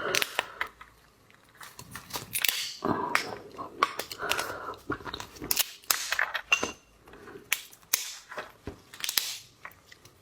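Close-miked eating sounds: irregular sharp cracks and crunches of lobster shell being broken, mixed with wet chewing.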